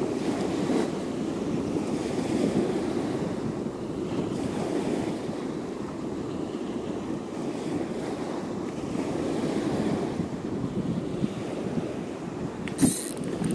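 Small surf washing onto a sandy beach, with strong wind rumbling on the microphone. There is a sharp click near the end.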